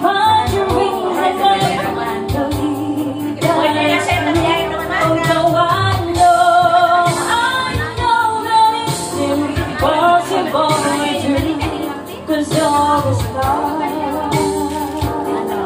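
A woman singing karaoke into a handheld microphone over a pop backing track with a steady beat.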